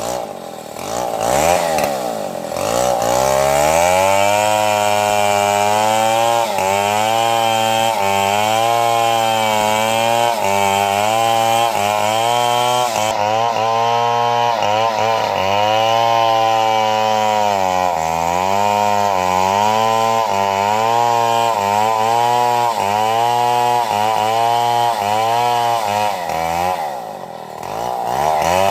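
Two-stroke chainsaw cutting wood at high revs. Its pitch sags and recovers again and again as the chain loads in the cut. It revs up over the first couple of seconds, and near the end it drops briefly toward idle before revving up again.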